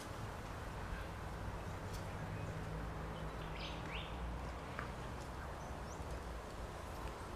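Outdoor ambience: a steady low rumble of wind on the microphone, with a few short bird chirps around the middle.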